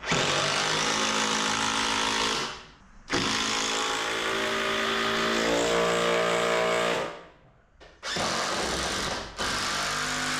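Power drill running in four long bursts, its motor pitch shifting as it works under load.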